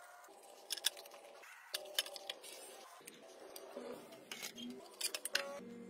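Scattered sharp clicks and scrapes of a snap-off utility knife and stiff plastic board being worked and handled, over background music with a simple melody.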